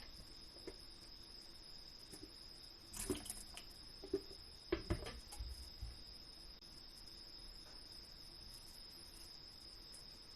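A steady high-pitched insect trill, like a cricket, runs throughout. A few light knocks and clatters of kitchen handling come about three to five seconds in.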